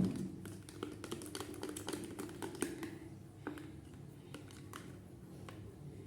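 A spoon tapping and scraping against a container while stirring slime glue: a quick, irregular series of light clicks, with a louder thump right at the start.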